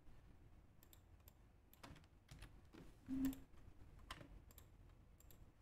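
Faint, scattered keystrokes and clicks on a computer keyboard, with a short low hum about three seconds in.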